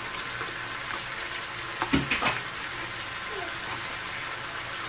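Diced tomatoes and bell peppers sizzling steadily in a frying pan, with a few sharp knocks and scrapes about two seconds in as a wooden spatula scrapes pepper paste out of a plastic bowl into the pan.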